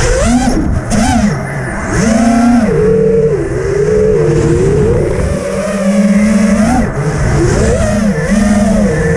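FPV racing quadcopter's brushless motors whining, the pitch swinging up and down over and over as the throttle is worked.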